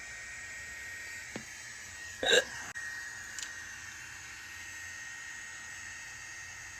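A single short hiccup from a woman about two seconds in, over a steady faint background hiss.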